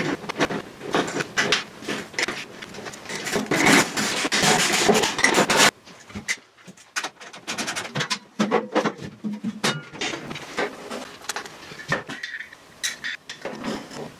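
Metal parts of a MIG welder being handled and fitted together. There is dense clicking and rattling that cuts off suddenly about six seconds in, followed by scattered clicks and knocks.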